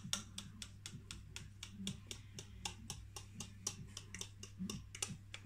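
A quick, fairly even run of light, sharp clicks, several a second, over a faint low steady hum.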